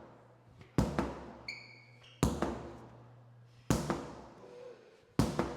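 Sledgehammer strikes landing at an even pace, four heavy impacts about a second and a half apart, each ringing out briefly. A short high squeak comes between the first and second strikes.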